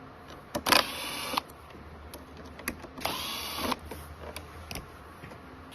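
Cordless electric screwdriver whirring in two short bursts, each under a second, backing out screws from the ultrasound machine's control panel.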